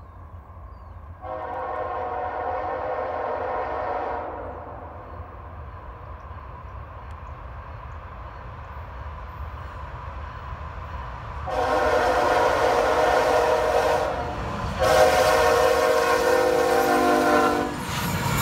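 CSX freight locomotive's air horn sounding the grade-crossing warning as the train approaches: one chord blast of about three seconds starting about a second in, then a long blast from about 11 seconds, broken briefly near 14 seconds, running until just before the end and louder as the train nears. The train's low rumble rises near the end as the locomotive reaches the crossing.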